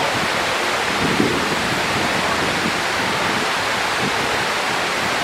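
Steady rush of falling water from the Mirage volcano's lagoon waterfalls.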